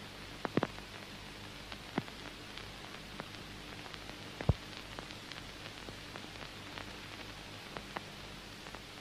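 Surface noise of a worn 1931 optical film soundtrack: steady hiss and a faint low hum, with scattered clicks and pops. Two louder pops come about half a second in and about four and a half seconds in.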